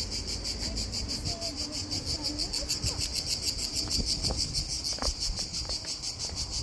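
Chorus of insects singing: a steady, high buzzing trill that pulses evenly several times a second.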